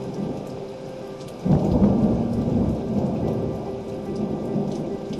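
Steady rain with a clap of thunder breaking about a second and a half in, then rumbling and slowly fading.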